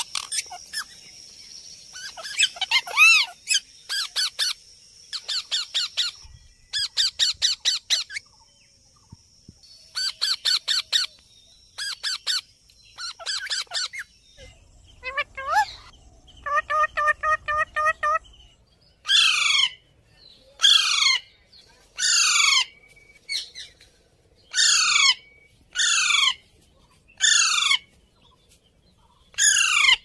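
Ringneck parakeets screeching. For the first half there are bursts of rapid, harsh, repeated calls. Then comes a series of shrill calls, each falling sharply in pitch, about one every second or so.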